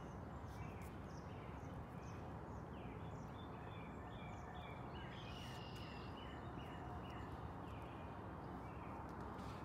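Birds chirping in short, falling notes, several a second and thickest midway, over a steady low outdoor rumble.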